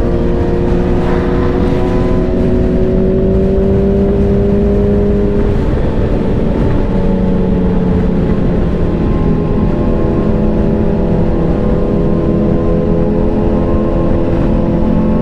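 Sportbike engine running at a steady cruise under heavy wind rush, the engine note easing slightly lower about halfway through.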